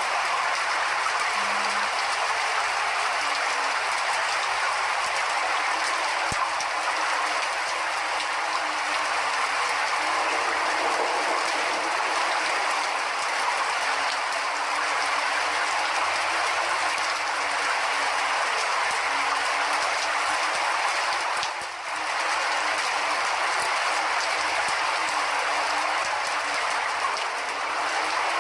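Steady heavy rain, a dense even hiss of falling drops with no let-up, apart from a brief dip about three-quarters of the way through.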